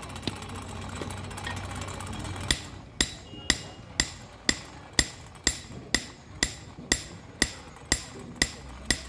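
A blacksmith's hammer striking metal in a steady rhythm of about two blows a second, each blow with a short metallic ring. The blows start about two and a half seconds in.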